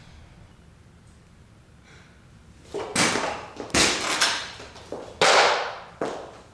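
A run of sharp, loud bangs and knocks, about six in four seconds, each dying away with a short ring; the one near the end is the loudest and longest. Before them, a couple of seconds of low background.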